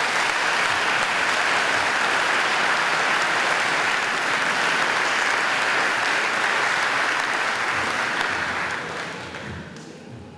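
Audience applauding, steady and loud, then dying away near the end.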